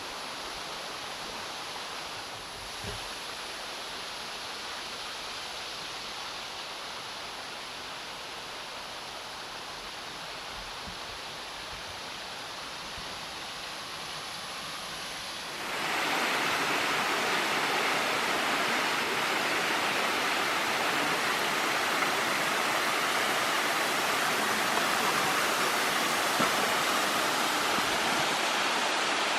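Waterfall rushing in a steady, even roar of falling water; about sixteen seconds in it becomes suddenly louder and fuller, then holds steady.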